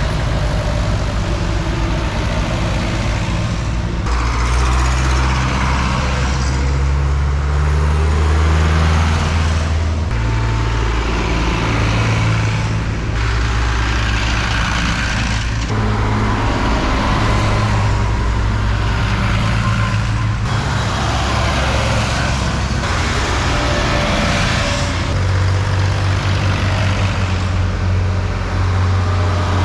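Vintage tractors driving past one after another, their engines running with a low, steady chugging that changes every few seconds as one tractor gives way to the next.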